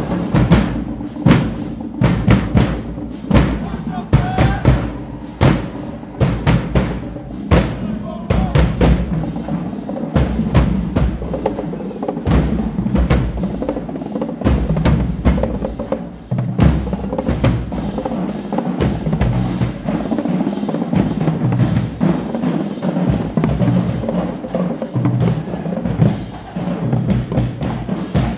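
Marching band drumline playing a march-in cadence: Pearl marching bass drums and snare drums beating a fast, dense rhythm of heavy hits.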